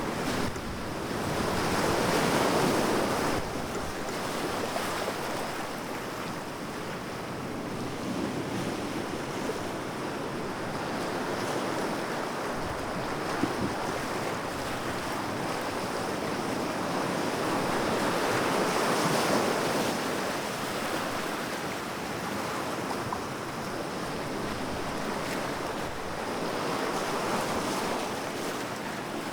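Sea waves and surf: a continuous rush of water that rises and falls in slow swells every several seconds.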